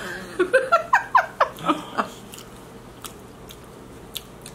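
A short run of laughter, several quick falling 'ha' sounds in the first two seconds, then quiet with a few faint clicks of eating.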